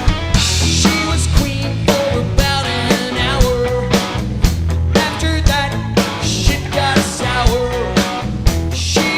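Live rock band playing with drum kit, electric guitar and bass guitar, the drums keeping a steady beat of about two hits a second.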